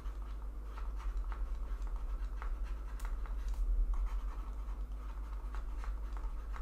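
Faint, irregular scratching and tapping of a stylus on a pen tablet as letters are handwritten, over a steady low hum.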